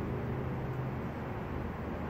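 Steady relaxation white-noise track: an even, deep hiss that stays the same throughout, with a faint low hum under it.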